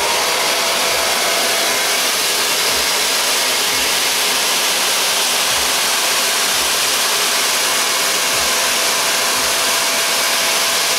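Handheld hair dryer with a flat concentrator nozzle, running steadily on its highest airflow and hot setting: an even rush of air with a faint steady motor hum underneath.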